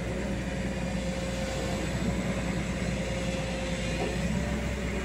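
Diesel engines of a JCB digger and a loaded dump truck running steadily: an even low drone with a faint steady high tone over it.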